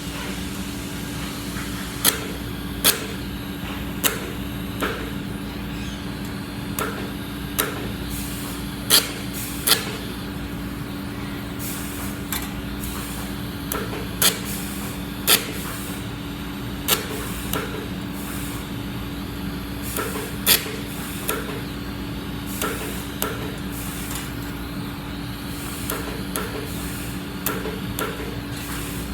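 Welding arc pulsed by hand: short, sharp bursts of arc crackle, each starting and stopping about once a second at an uneven pace, over a steady hum.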